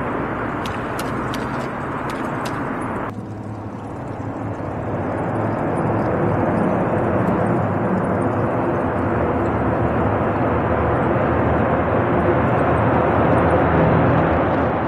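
Steady rushing wind and road noise from riding a bicycle, growing gradually louder. A few sharp clicks in the first couple of seconds come from the bicycle's gears being shifted up.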